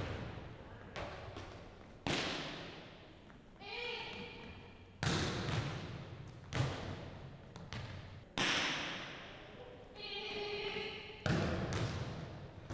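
A volleyball struck back and forth between two players, about six sharp smacks a second or two apart, each followed by a long echo in the big gym. A voice calls out briefly twice between hits.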